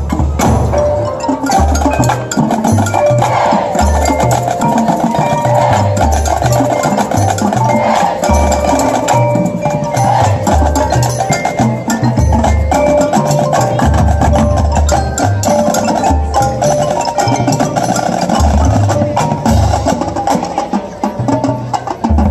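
High school marching band playing its field show, with the front ensemble's mallet percussion prominent over deep drum hits that land every second or two.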